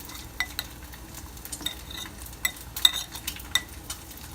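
Spoon stirring partly cooked, still-wet rice in its microwave container, with irregular clinks of the spoon against the container's side.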